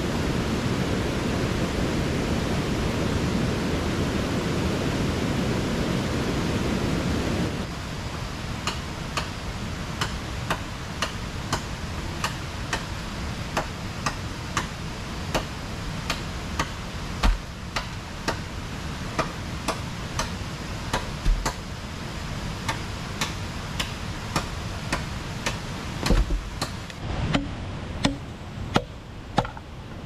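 A steady rushing noise, like running water, that stops suddenly about seven seconds in. After that comes quieter rainforest ambience with sharp ticks about twice a second and a few heavier thumps from wood being handled at a campsite.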